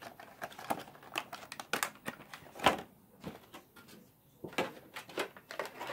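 Plastic-windowed toy box being handled, its packaging crinkling and clicking in scattered, irregular snaps; the sharpest snap comes about two and a half seconds in.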